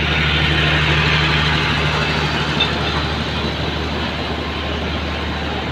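Diesel generator sets of a Pakistan Railways power van running with a steady low hum.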